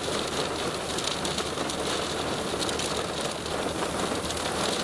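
Steady heavy rain with a dense patter of drops striking close by.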